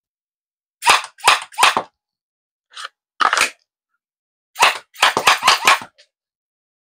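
Zius BK1S gel blaster firing shot after shot, its reciprocating bolt cycling with each shot. Three quick shots come about a second in, then one more, then a rapid string of about six shots near the end.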